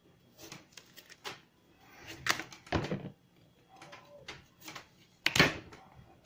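Squash being handled and cut on a plastic cutting board: a run of irregular knocks and scrapes, with the loudest single knock about five seconds in.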